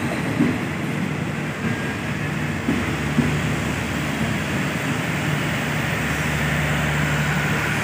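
Passenger railway coaches rolling past on the adjacent track. The wheels knock over rail joints a few times in the first seconds, then a steady low hum runs under the rolling noise from about three seconds in.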